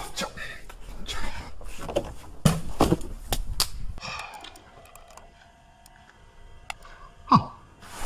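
Clicks and knocks of someone using a computer mouse and keyboard, closely spaced at first and fainter and sparser after halfway. A short, loud sound that drops in pitch comes near the end.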